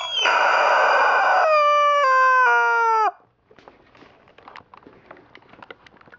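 Rubber chicken toy squeezed, letting out a long rasping squawk that turns into a wail stepping down in pitch and dies away about three seconds in. Faint scattered clicks and rustling follow.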